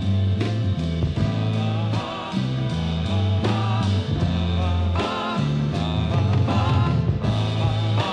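Late-1960s psychedelic rock recording: a rock band with a stepping bass line and drums, and a wavering melody line coming in over them about two and a half seconds in.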